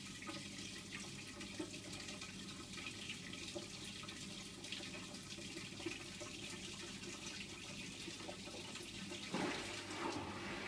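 New Hotpoint washing machine running its wash cycle: water running and swishing in the machine over a steady hum. About nine seconds in, the sound shifts and gets louder.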